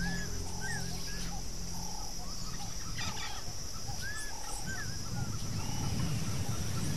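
Savanna ambience: birds calling again and again in short chirps and repeated notes over a steady high whine. A low rumble builds in the second half.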